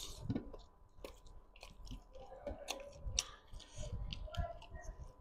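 A person biting and chewing a piece of chicken curry eaten by hand, with many short mouth clicks and smacks.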